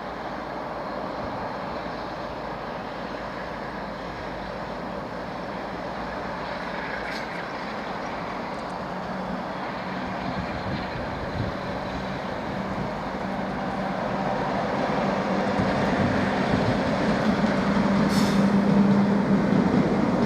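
A train approaching and growing steadily louder, with a steady low engine note that strengthens over the second half.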